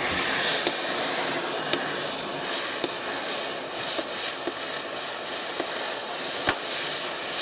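Oxyacetylene cutting torch hissing steadily as it cuts through the cotter pin in an excavator's steel-track master pin, with scattered sharp pops, the loudest about six and a half seconds in.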